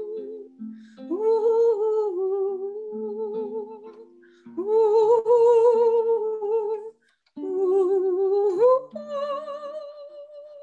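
A woman singing a wordless 'ooh' melody in long held notes with vibrato: three phrases with short breaks, the last rising near the end to a higher note that she holds, over a soft accompaniment of low sustained notes.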